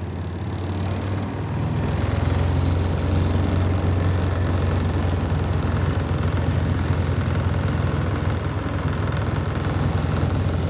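Engine of a Gator utility vehicle running steadily with a low hum, getting louder about two seconds in and then holding steady.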